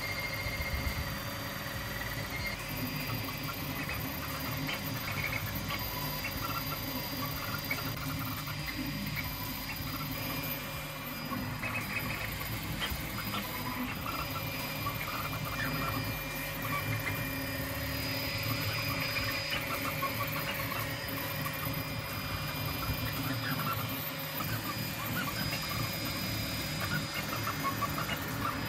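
TwoTrees SK1 CoreXY 3D printer running a print. Its stepper motors give short squealing chirps that change pitch with each quick move of the print head, over a few steady high tones.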